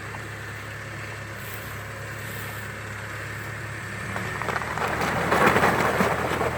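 Off-road 4x4's engine running steadily, then rising and getting louder about four seconds in, with a loud noisy rush about five seconds in as the vehicle works through mud.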